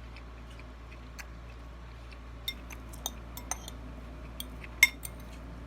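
Eating utensil clinking against a bowl of rice, a handful of short ringing clinks in the second half, the loudest about five seconds in, with light clicks of eating between them.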